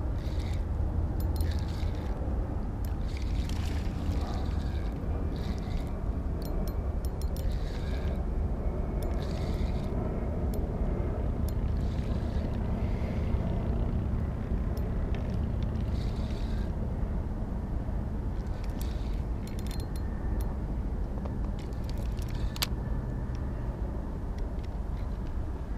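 Kayak paddling: light water splashes and drips from the paddle every second or two, with scattered clicks from the paddle and fishing gear, over a steady low rumble.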